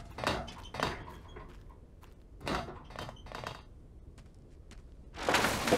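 Cartoon sound effects: a string of short knocks and clattering hits, then a louder noisy crash near the end.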